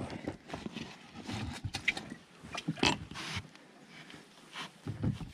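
Irregular rustling and knocks of an angler moving about and handling gear in an inflatable PVC boat, with a few short sharp sounds among them.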